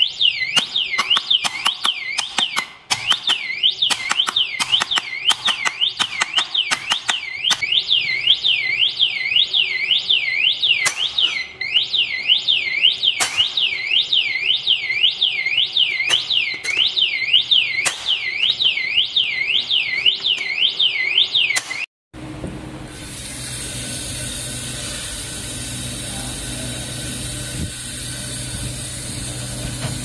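Electronic siren of a KVYX alarm disc lock wailing, sweeping up and down about two and a half times a second, set off by hammer blows that land on the lock as sharp metal clanks, several a second at first and sparser later; the footage is sped up threefold. About two-thirds through the siren cuts off and a steady mechanical hum takes over.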